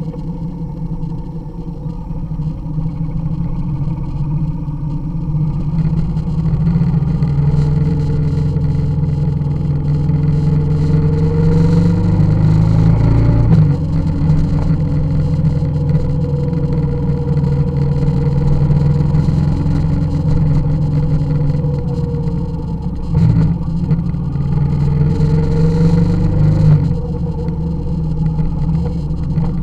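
Motorcycle engine running under way on a dirt road. Its pitch climbs as it accelerates, drops sharply about halfway through, and dips briefly twice more near the end.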